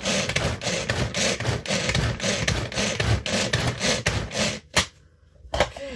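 Hand-operated food chopper with a plastic bowl, its blades chopping greens and peppers: a rapid, continuous run of rattling, scraping strokes that stops about four and a half seconds in, followed by two short sharp knocks.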